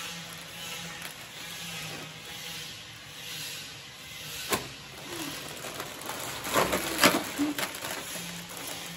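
Plastic Lay's crisp packets being crinkled and torn open, in a burst of loud crackling about six and a half to seven and a half seconds in, with a single sharp crackle earlier, over a steady background hiss.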